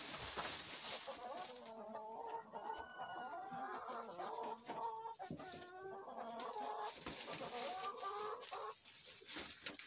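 Several hens clucking and calling over one another.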